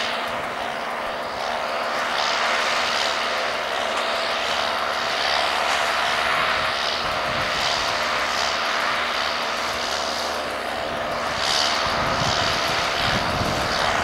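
John Deere 6110 tractor's four-cylinder diesel engine running steadily under load while it pulls a working International Harvester 440 small square baler. It grows a little louder near the end.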